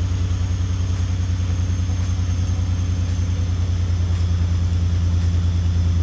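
Buick Grand National's turbocharged 3.8-litre V6 idling steadily, heard from the driver's seat, with an even low pulsing rumble that grows a little louder near the end. It is running on a freshly installed T04E60 turbo and an untouched baseline chip tune that runs lean.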